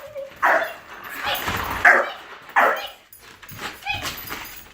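A dog barking on the command to speak: three loud, sharp barks in the first three seconds, then a few softer ones.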